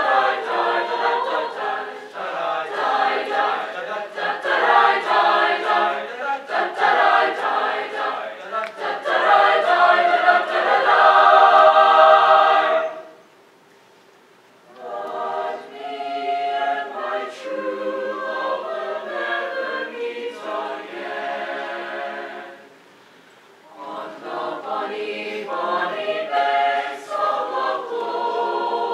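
High school mixed choir singing a cappella, swelling to a loud held chord that cuts off sharply about halfway through. Two short rests break the singing before it resumes.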